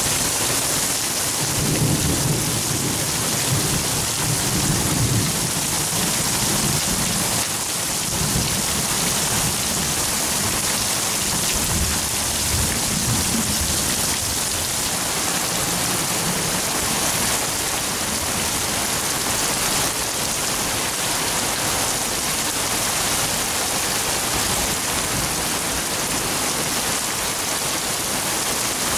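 Heavy thunderstorm rain pouring steadily, with thunder rumbling low for several seconds starting about two seconds in and again more briefly near the middle.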